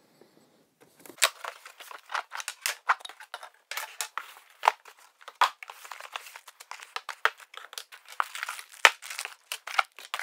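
Packaging crinkling and rustling as a box is unpacked by hand: a dense run of sharp crackles that starts about a second in.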